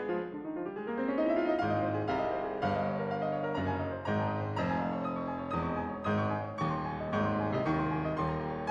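Background piano music, a steady flow of notes with a rising run near the start.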